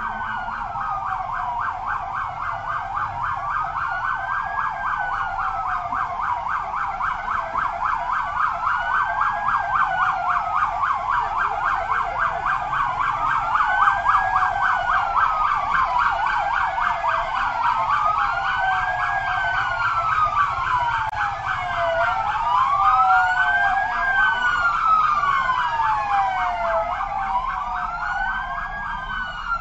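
Several emergency-vehicle sirens sounding at once. Their slow rising-and-falling wails overlap out of step, over a fast pulsing tone.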